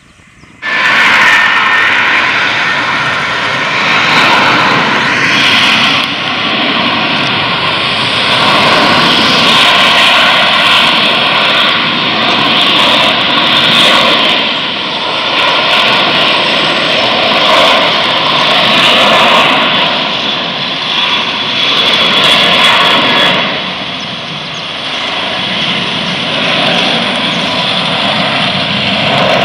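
A Boeing 737 airliner's twin jet engines at takeoff power through the takeoff roll and climb-out. The jet noise starts suddenly about half a second in and stays loud and steady, with a high fan whine over it.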